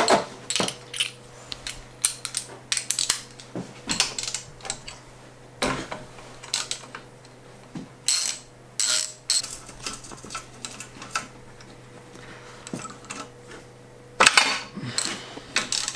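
Scattered metal clicks and clinks of a socket set being handled and fitted onto a bolt, then a ratchet wrench clicking in a quick run near the end as a motor mounting bolt is turned.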